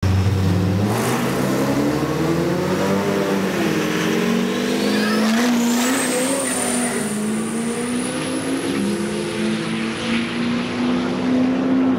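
Diesel pickup truck launching and accelerating hard at full throttle down a drag strip, the engine note climbing in pitch over the first few seconds and then holding steady. A high whine rises in pitch from about four seconds in and then holds. The thick black smoke points to very heavy fuelling.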